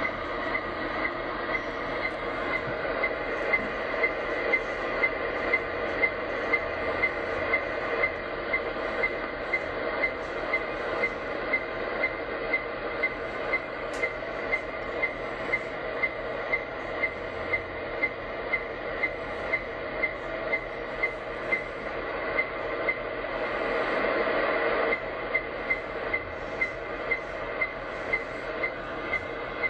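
Yaesu FTdx10 transceiver in AM mode receiving a wideband shortwave signal around 25.2 MHz that the operator takes for CODAR ocean radar: steady hiss with a short, regular sweep pulse about twice a second. About 25 seconds in the pulses stop for a moment under louder hiss, then resume.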